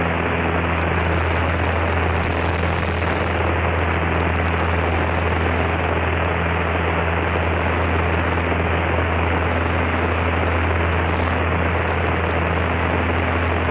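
Cessna 152's four-cylinder Lycoming engine and propeller running steadily in flight, heard inside the small cockpit: a constant drone with a strong low hum and even noise, holding the same pitch and level throughout.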